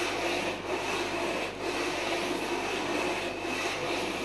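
Aluminium cylinder head of a GX200 Honda-clone engine being rubbed face-down over wet 120-grit wet-and-dry sandpaper in figure-eight strokes, shaving the head's gasket face flat. It is a steady, gritty scraping, with a few brief dips as the strokes change direction.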